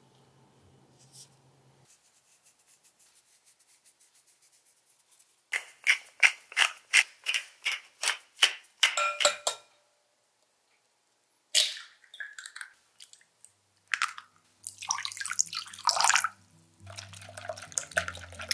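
A quick run of about a dozen sharp clicks, then eggs cracked against a glass mixing bowl and beaten with a wire whisk. Soft background music comes in near the end.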